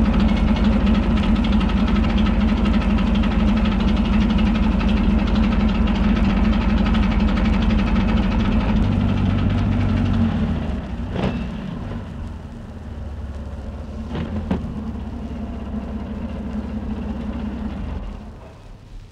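WWII German military vehicle engine ticking over steadily. About halfway through it drops to a quieter, lower running with a few sharp clicks. It then dies away as the engine is shut off near the end.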